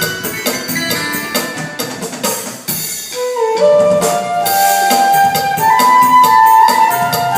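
Korg Pa600 arranger keyboard playing a cha-cha-cha style: a steady Latin percussion pattern with accompaniment. About three seconds in it drops briefly, then a lead melody of long held notes enters over the beat.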